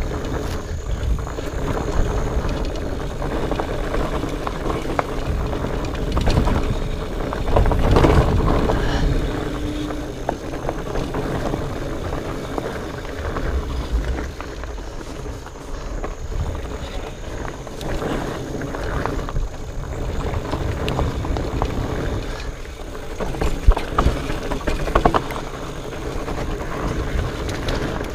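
Specialized Fatboy fat bike being ridden over a rocky, technical trail: a steady rumble of tyres rolling with frequent knocks and rattles as it hits rocks and roots, loudest about eight seconds in.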